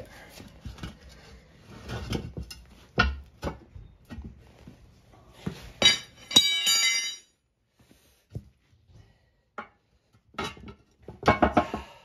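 Metal tools and parts being handled during a tire change: scattered knocks, a ringing metallic clank about six seconds in, a brief quiet with a few ticks, then a quick run of knocks near the end.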